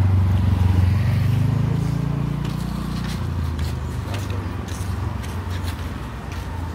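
Motor scooter engine running close by, its pitch rising over the first three seconds and then settling back.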